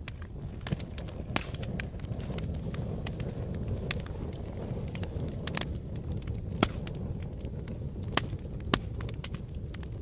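Wood fire burning: a steady low rush of flames with irregular crackles and sharp pops from the burning wood, a few of them louder and snappier.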